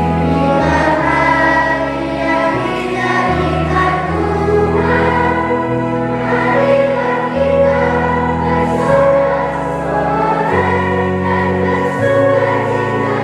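Children's choir singing a hymn over electronic keyboard accompaniment, with held low chords that change every second or two.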